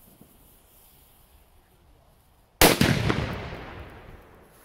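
A large firecracker exploding with a single sharp bang about two and a half seconds in, followed by an echo that fades over about two seconds.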